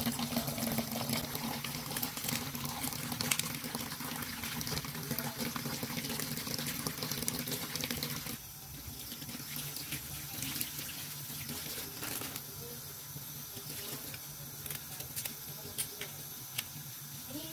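Tap water running into a sink while fish and shrimp are washed. The flow eases about eight seconds in, leaving quieter splashing and small knocks.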